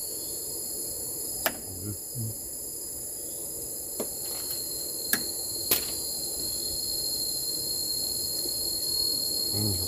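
Steady chorus of forest insects, crickets or cicadas, holding a high continuous trill, with a few sharp clicks or knocks.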